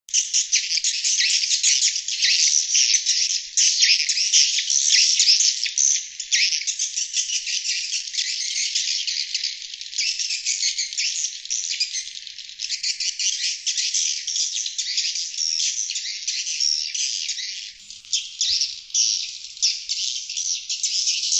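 Swiftlet-house lure recording of sriti swiftlets: a dense, continuous chorus of rapid high-pitched twittering chirps, played to attract wild sriti to nest.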